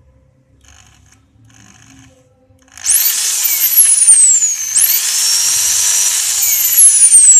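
Used Japanese-market Hitachi hammer drill (100 V, 390 W) switched on after a few faint handling clicks; its motor starts about three seconds in and runs loud with a high whine whose pitch slides and jumps as the variable-speed control is worked.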